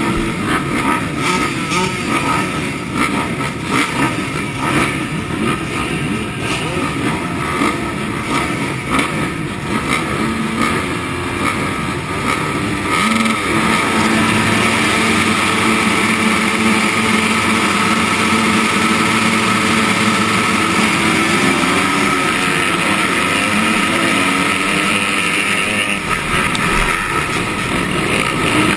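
Motocross bikes at the start gate, engines revving unevenly, then from about halfway held at steady high revs together. Near the end the gate drops and the pack accelerates away at full throttle.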